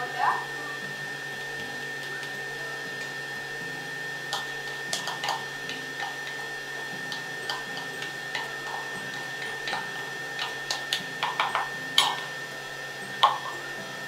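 Stand mixer motor running steadily on a middle speed, creaming butter, margarine and sugar, with a constant high whine over its hum. Scattered light clicks and taps of a metal sieve and bowl sound as flour is sifted, most of them in the middle and later part.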